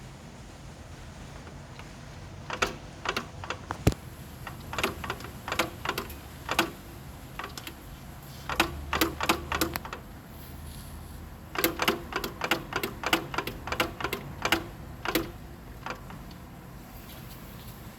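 Remanufactured CVT in a Nissan Rogue clunking: irregular runs of sharp knocks over a steady low drone. The owner puts the clunking down to a failing internal bearing in a unit with under 2,000 miles on it.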